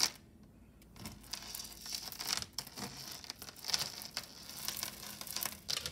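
Jewelry being handled: irregular crinkling, rustling and small clicks as a long necklace is picked up from the pile. It starts about a second in.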